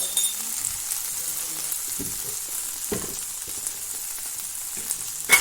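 Spice paste of ginger-garlic, dried chilli, pepper and garam masala sizzling steadily in sesame oil in a pan on low heat. A few soft knocks from stirring, and a sharp clink near the end.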